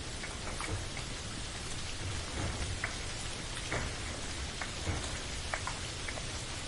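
Steady rain pattering, with scattered louder individual drops ticking against a surface and a low steady rumble underneath.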